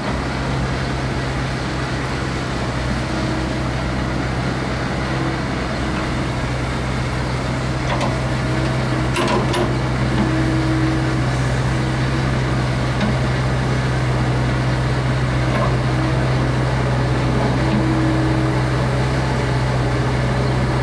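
Hyundai R55 mini excavator's diesel engine running steadily at idle, with one brief knock about nine seconds in.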